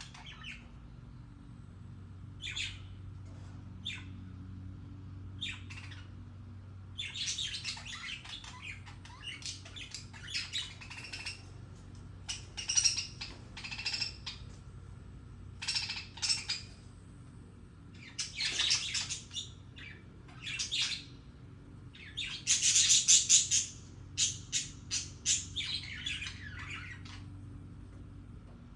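Budgerigars chirping and chattering in short, irregular bursts of warbles and squawks, busier and louder after the first few seconds, over a low steady hum. The owner takes this chatter for happy, mating sounds.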